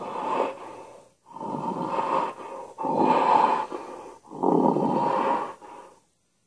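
Recorded King Kong roar sound effect played back: four rough roars in a row, each lasting about a second and a half, stopping near the end.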